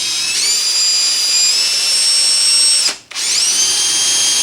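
Electric drill running in reverse, driving a small left-hand cobalt drill bit slowly into a broken soft-metal tip to make a hole for a screw extractor. A steady high motor whine rises to speed, cuts out for a moment about three seconds in, then spins up again.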